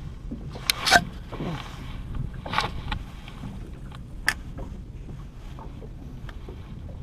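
Low steady rumble of a small boat at sea, with a few sharp knocks and clacks on board, the loudest about a second in.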